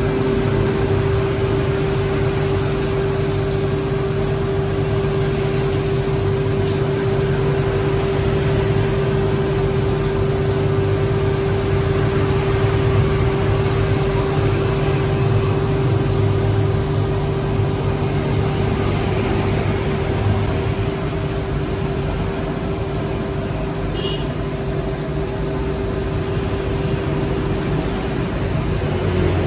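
A motor running steadily: a constant hum over a low drone, unchanging throughout.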